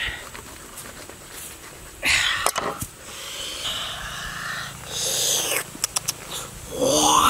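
A whole jackfruit being pried apart by hand along a knife cut. The rind and fibrous flesh tear with a loud ripping crackle about two seconds in. This is followed by sticky squeaking and creaking as the halves separate, ending in a rising creak near the end.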